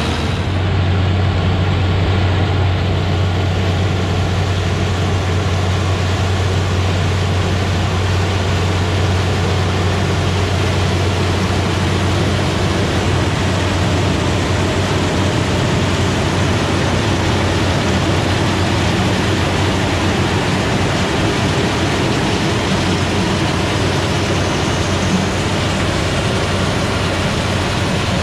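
Vintage corn-harvesting machine running steadily in the field: a constant low engine drone under a wide spread of machinery noise.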